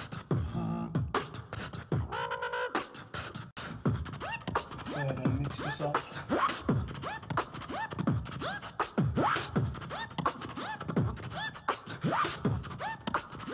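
Vocal beatbox backing track: a steady beat of mouth-made kick drums, snares and hi-hat clicks.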